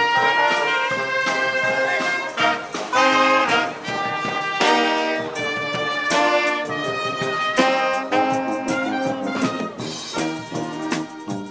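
A brass band of trumpets, trombones, saxophones and tuba playing a lively tune together, close and loud, growing somewhat fainter near the end.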